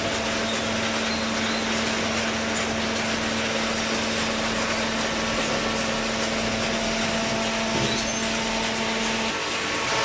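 Steady noise of a running hydraulic baler: a continuous even rushing noise with a low hum. The hum cuts out a little after nine seconds in.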